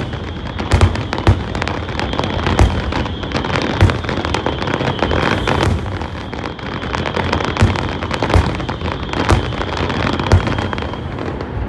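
Aerial fireworks display going off in quick succession: loud bangs about once a second over continuous crackling, with a steady high whistle underneath.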